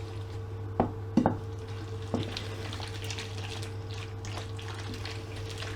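Chicken livers and onions sizzling in a frying pan while being stirred, with a few knocks of the utensil against the pan in the first two seconds. A steady low hum runs underneath.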